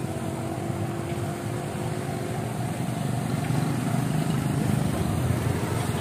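Motorcycle running at low speed while being ridden: a steady low rumble that grows a little louder about halfway through.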